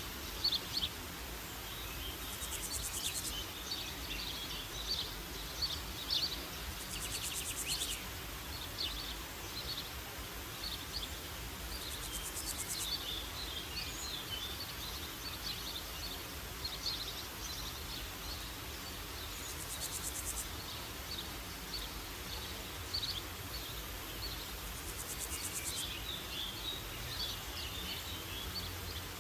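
Forest birds chirping and singing continuously, many small overlapping calls. A very high, rapidly pulsing trill comes in bursts of about a second, every five seconds or so, over a steady soft background hush.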